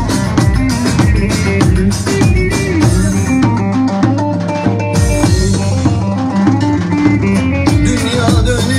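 Loud amplified Turkish folk dance music from a medley: a steady drum-kit beat under a plucked-string melody.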